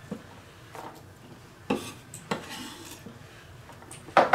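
Chef's knife on a wooden cutting board: a few sharp knocks and scrapes while chopping onion. The loudest knock comes near the end, as the chopped onion is scraped off the board into a plastic colander.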